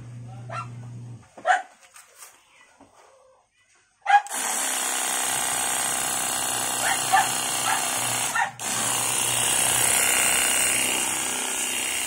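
INGCO CPWLI20082P cordless lithium-ion pressure washer running and spraying a water jet, starting about four seconds in, with the motor-driven pump giving a steady buzzing whine over the hiss of the spray. It stops for a moment about two-thirds of the way through as the trigger is let go, starts again, and cuts off at the end.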